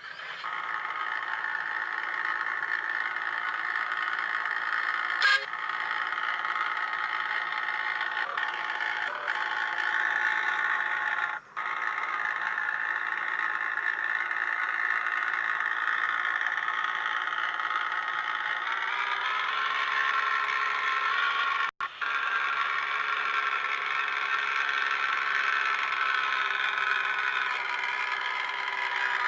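Vehicle air horns of the ship-trumpet type sounding a sustained chord of several steady tones, which shifts slightly upward in pitch about two-thirds of the way in, with two brief breaks.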